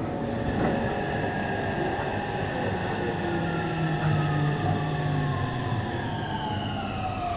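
Meitetsu 300-series electric train (set 317F) slowing, its traction motor and inverter whine falling steadily in pitch over the rumble of the running gear. The whine drops fastest near the end as the train brakes.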